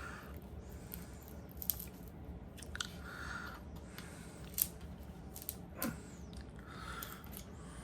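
Carving knife whittling a block of poplar: a few quiet slicing strokes through the wood, about half a second each, with scattered sharp clicks between them.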